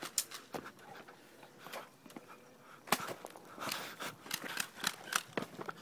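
Irregular sharp clicks and crackles, a few at first and then coming thicker and louder from about three seconds in.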